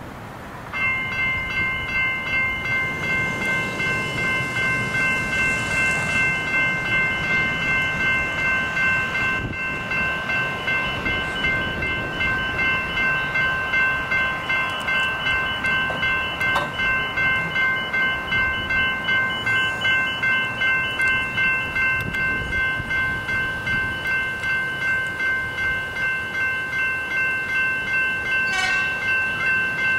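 Level crossing warning bells ringing, a steady repeating ding at about two strokes a second, starting abruptly about a second in as the crossing activates for an approaching train.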